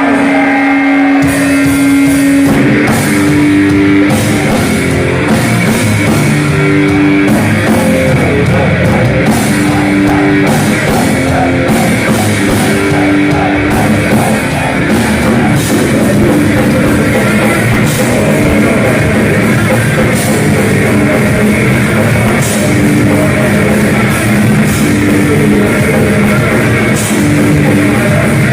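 Live heavy metal band playing loud: a single held guitar note, then about two seconds in the drum kit and distorted electric guitars come in with a fast repeating riff.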